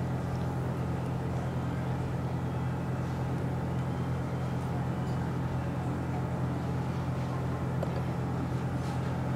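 Steady low engine hum, running at an even speed and level without change.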